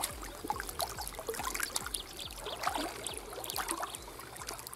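Shallow water lapping and splashing in small irregular bursts around an angler's hands and waders as a carp is released back into the lake.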